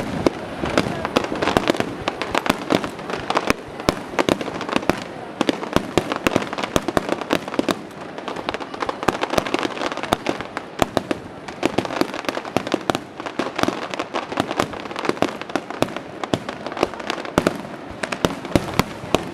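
Fireworks crackling: a dense, unbroken stream of sharp pops, many each second.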